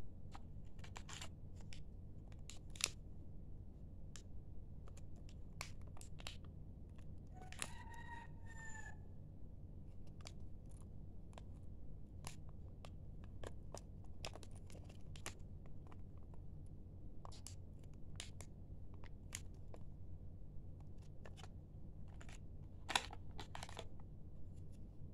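Clear plastic bags crinkling, with small metal RC boat parts (four-blade propeller, universal joint) clicking inside them as they are handled, over a steady low hum. A short pitched sound with a bending pitch comes about eight seconds in.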